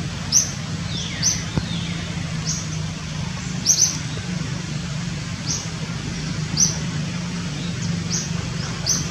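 A bird chirping: short, sharp, high chirps about once a second, some in quick pairs, with a falling call about a second in. Underneath, steady rain noise and a constant low hum.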